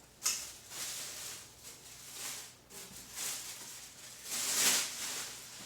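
Packaging rustling and scraping in several swells as umbrella parts are handled and pulled from the box, with a sharp start just after the beginning and the loudest rustle near the end.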